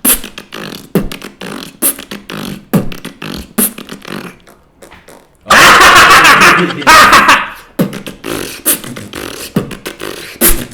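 A person beatboxing: mouth-made drum hits in a steady beat, about one strong hit a second with lighter clicks between them. About halfway through, a loud noisy sound is held for about two seconds before the hits return.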